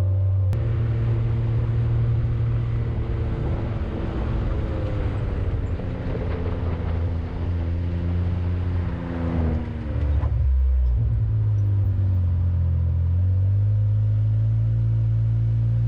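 Side-by-side UTV engine running while driving on a trail. Its pitch sinks slowly through the middle, drops briefly about ten seconds in, then climbs again and holds steady, with rough road and wind noise over it in the first part.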